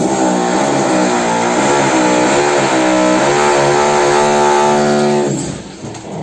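Electric power tool's motor running loud at high speed, its pitch wavering as it works. It starts suddenly and cuts off about five seconds in.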